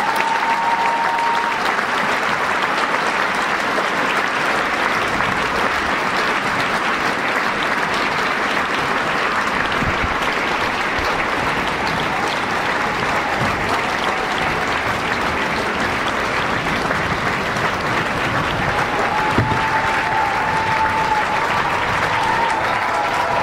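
Theatre audience applauding, a dense, steady clapping that holds at one level throughout.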